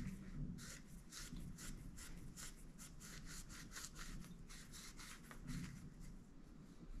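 Faint, quick rubbing strokes, about three or four a second, of an acetone-soaked rag wiping a metal V-band flange clean before TIG welding.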